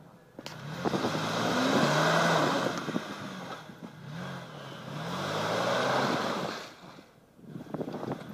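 Mercedes-Benz M-Class SUV engine revving hard in two long surges of about three seconds each, its pitch rising and falling, over the hiss of wheels spinning in mud as it tries to drive out of a boggy rut.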